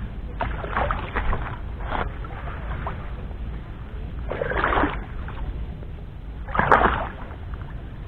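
Pond water sloshing and splashing around a person wading belly-deep, with swishing surges about a second in, again about halfway, and loudest near the end, over a steady low rumble.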